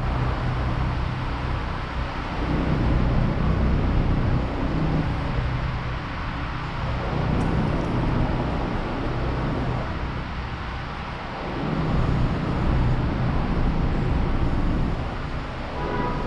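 Busy city street traffic: cars running and idling close by, a continuous rushing noise over a steady low engine hum that swells and eases as vehicles pass.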